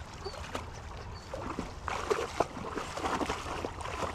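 A retriever dog splashing through the pond water to fetch a shot duck: irregular splashing and sloshing, loudest about two and three seconds in.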